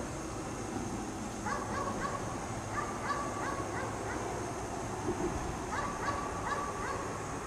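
Dog barking repeatedly in three short bursts, each of four or five quick barks at about three a second.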